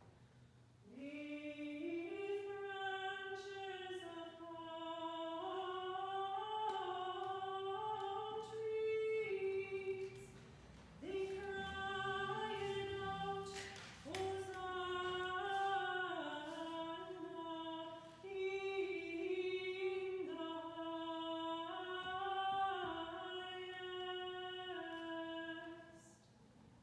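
Unaccompanied singing of a single melodic line in the manner of plainchant, with held notes moving in small steps and short pauses between phrases about 10, 13 and 18 seconds in.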